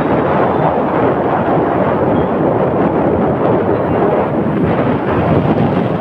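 Wind buffeting a phone microphone that is moving fast along a road: a steady, loud rushing noise with no distinct engine note.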